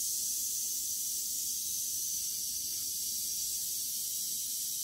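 Western diamondback rattlesnake shaking its tail rattle: a steady, high, unbroken buzz, the snake's defensive warning.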